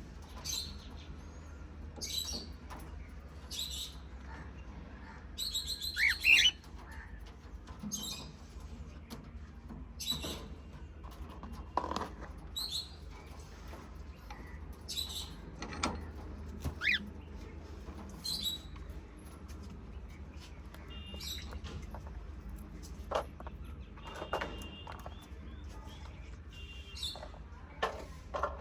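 Pet cockatiel and budgies chirping in short, separate calls every second or two, with a louder burst of rapid chirps about six seconds in, over a steady low hum.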